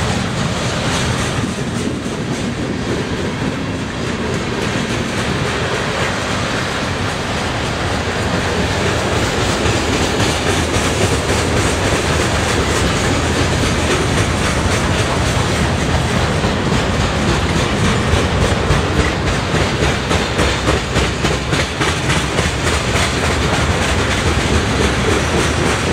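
Freight train cars rolling past: boxcars and covered hoppers with steel wheels clacking over the rail joints in a steady clickety-clack, under a continuous rolling rattle, a little louder in the second half.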